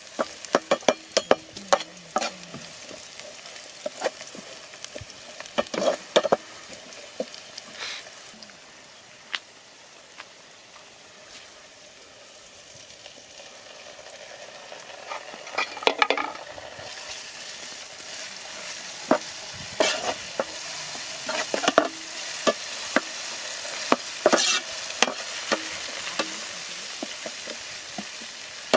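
Chicken sizzling as it fries in a pan, stirred with a utensil that clacks and scrapes against the pan at irregular moments. The sizzle eases off about a third of the way in and grows louder in the second half.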